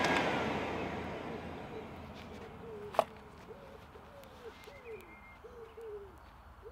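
Forge blower's rushing air dying away as it is switched off, its whine dropping in pitch and stopping. Then a dove coos several times, with one sharp click about three seconds in.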